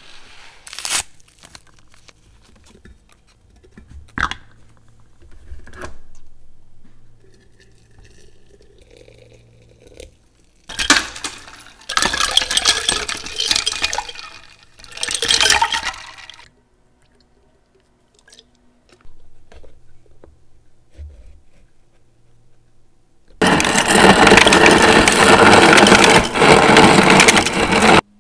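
Tea poured from a glass pot onto ice cubes in a glass jug, the stream splashing and the ice cracking, after a couple of sharp clicks from glass jars being handled. Near the end a loud, steady rushing noise starts and stops abruptly, lasting about five seconds.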